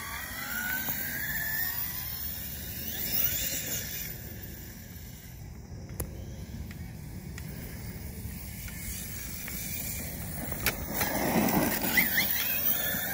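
Electric motor of an Arrma Infraction RC monster truck whining as it accelerates away across grass, with the whine rising in pitch. It grows fainter in the middle, then comes back louder near the end as the truck passes close, its tyres throwing up dirt.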